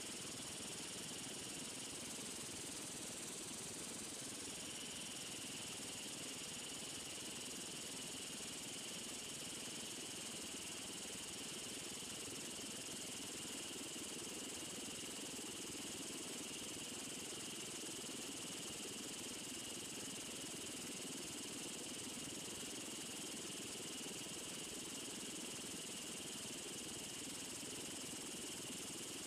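Faint steady hiss of an aircraft in flight heard from inside the cabin, with a high whine that comes in about five seconds in and holds.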